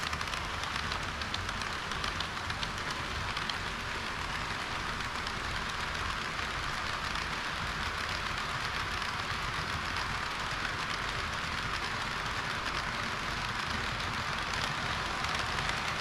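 HO-scale model trains running on sectional track: a steady rattling hiss of wheels on the rails, with light ticks over the rail joints.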